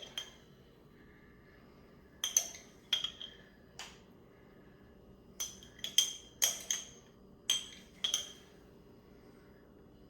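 Metal spoon clinking against a glass jam jar as jam is scooped out, about a dozen sharp, ringing clinks in irregular clusters, starting about two seconds in and stopping a little after eight seconds.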